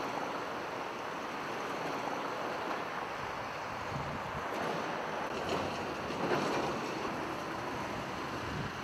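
Steady rushing noise of highway traffic on the flooded expressway, swelling a little in the middle.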